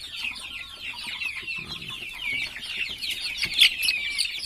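A flock of young kampung chickens, less than a month old, peeping continuously in a dense chorus of short, high cheeps. One cheep about three and a half seconds in is louder than the rest.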